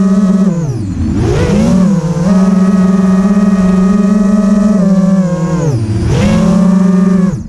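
FPV racing quadcopter's brushless motors and propellers whining steadily in flight. The pitch drops and climbs back twice, about a second in and about six seconds in, as the throttle is cut and punched again.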